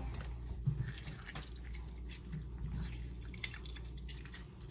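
Fresh lemon juice dripping in small drops, with a few faint clicks and knocks, over a low steady hum.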